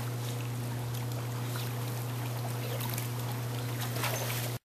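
Water lapping and splashing as a dog swims across a backyard pool, over the steady low hum of the pool's filter pump. The sound cuts off abruptly near the end.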